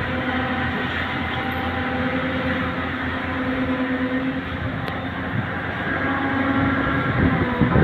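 Heavy diesel engine of road-building machinery running at a steady speed, a constant droning hum over a rumble, surging louder near the end.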